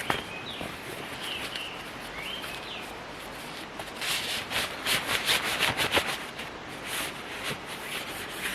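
Small birds chirping with short rising and falling calls outdoors, then a cluster of rustling and clicking handling noises about halfway through that lasts a couple of seconds.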